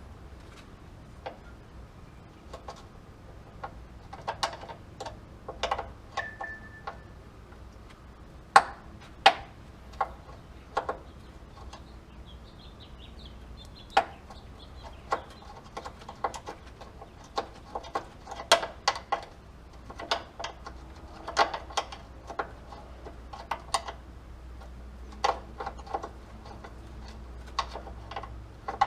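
Irregular metallic clicks, clinks and knocks of hand tools and brake hardware being handled and worked, spaced unevenly from about once a second to several in quick succession.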